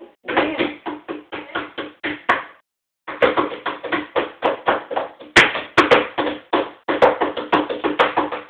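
A drum beaten rapidly by a child, in quick uneven strikes of about five a second, each with a short pitched ring. The strikes pause briefly about two and a half seconds in, then carry on with a few sharper cracks midway.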